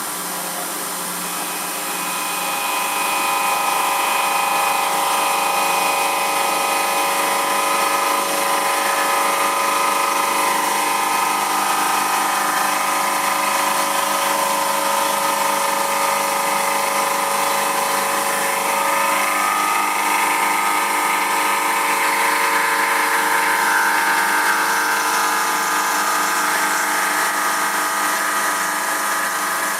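Emco F1 CNC milling machine running a programmed cut, its spindle and axis drives whining steadily as an end mill machines a cast aluminium engine pan. It grows louder about three seconds in, and one tone slides upward about nineteen seconds in.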